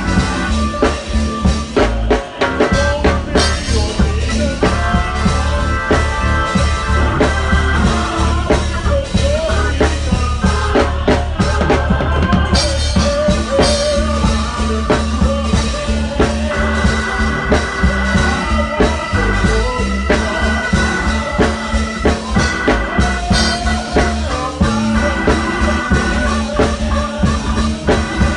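Live church band music played loud: a drum kit close by keeps a fast, steady beat on bass drum and snare, over held keyboard chords and a deep bass line.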